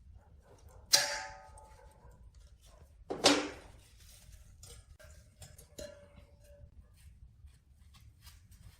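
Metal parts being handled on a workbench: a sharp clank with a short metallic ring about a second in, a louder knock and scrape about two seconds later, then a lighter clink with a brief ring.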